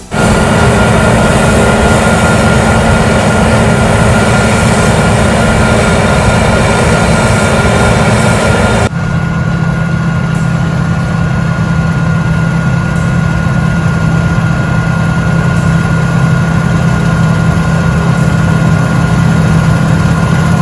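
Heavy farm machinery running steadily: a loud engine hum with a thin steady whine on top. About nine seconds in it changes abruptly to a slightly quieter, deeper hum.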